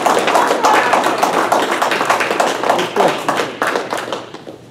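Audience clapping, many quick sharp claps together with a few voices calling out, dying away over the last second.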